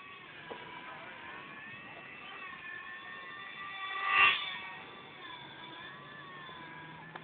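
RC model airplane's motor whining in flight, its pitch wavering up and down as the plane circles. It swells loudest about four seconds in as the plane passes close.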